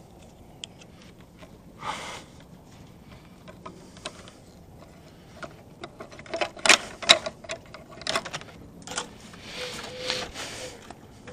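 Coax drop cable and its metal drop clamp being handled with gloved hands: scattered metallic clicks and rattles, loudest in a quick cluster of sharp clicks about seven seconds in, with brief rustling scrapes near the start and end.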